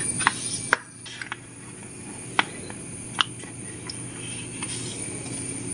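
A few short, sharp clicks and light taps of a steel knife against a ceramic plate as a cake is cut and a slice is lifted out, over a steady high-pitched tone in the background.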